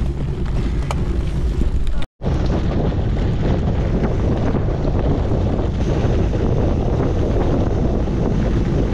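Wind buffeting an action camera's microphone on a gravel bike at speed, a steady loud rush with a heavy low rumble, with tyres rattling over rough gravel. It cuts out for a moment about two seconds in.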